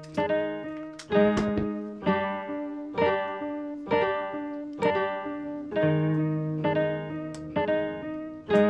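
Background music: chords on a plucked string instrument in a steady rhythm, about one chord a second.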